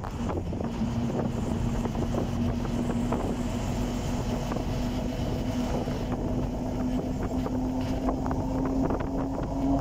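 Vintage bus heard from inside while driving: a low engine and drivetrain rumble with a steady hum that rises slightly in pitch as it gathers speed, plus some air rush.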